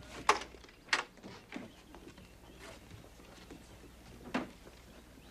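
Boots on wooden porch boards and the cabin door as a man goes inside: two sharp knocks in the first second, then a couple of fainter ones over a quiet background.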